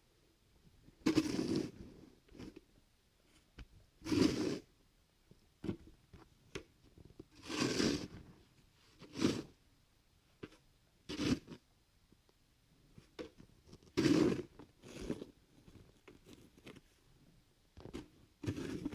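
Irregular rasping, scraping strokes, each about half a second to a second long, coming every two to three seconds, with small clicks and taps between them.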